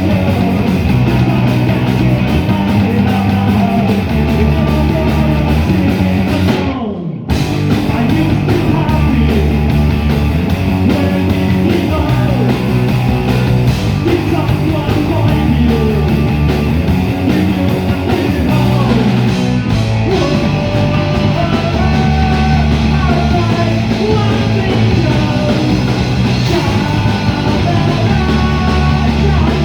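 Live rock band playing a song. About seven seconds in there is a falling slide, then the band cuts out for a moment before coming back in.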